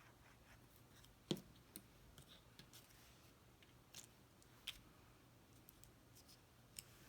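Near silence with a few faint clicks and taps from cardstock pieces being handled and pressed down while gluing, the sharpest about a second in.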